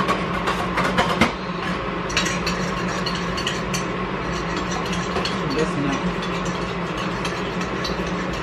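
A steady mechanical hum, with sharp clicks and knocks of a bowl and utensils in the first second or so while flour is mixed by hand in a plastic bowl.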